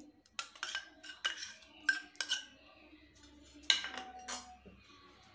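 Metal spoon tapping and scraping against a steel mixing bowl as ginger-garlic paste is knocked off it: a series of light clinks, with a sharper clink about two-thirds through that leaves a short metallic ring.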